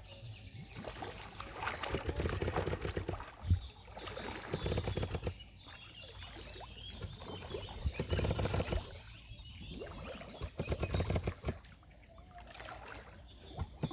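Water splashing and bubbling in four or five bursts a few seconds apart, from a diver finning and breathing out through a hose-fed regulator just under the surface.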